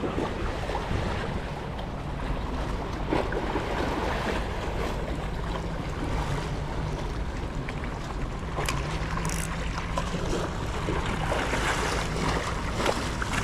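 Seaside ambience: wind on the microphone and moving water, under a steady low engine hum.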